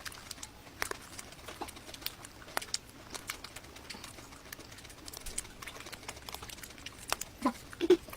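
Close-miked eating sounds: sparse, sharp clicks and crackles of chewing and mouth sounds. A few short squeaky pitched sounds come near the end.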